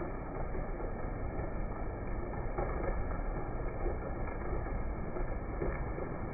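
Heavy rain falling steadily, a dense unbroken hiss with a dull, muffled top end.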